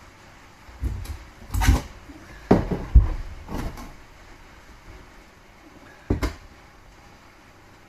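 Knocks and clatters of a Simpson oven door's metal panels being handled and pulled apart against a wooden floor. A handful of separate knocks, the loudest between about one and a half and three seconds in, and a last one about six seconds in.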